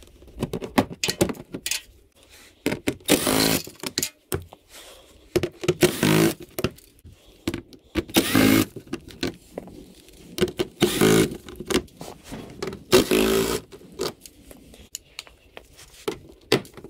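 Cordless impact driver running in about five short bursts of under a second each, backing out the screws along the lower edge of a front bumper cover. Short clicks and knocks of plastic clips and hand tools come between the bursts.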